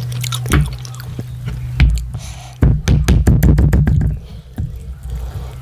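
Close-miked eating sounds: a spoon scooping rice across a wooden board, then a quick run of clicks and thumps about two and a half seconds in as a stew-coated piece of chicken is picked up by hand. A steady low hum sits under it all.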